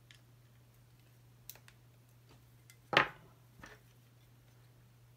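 Small clicks and taps of a screwdriver and fingers handling the bare metal chassis of a Commodore datasette, with one louder sharp click about three seconds in and a softer one just after.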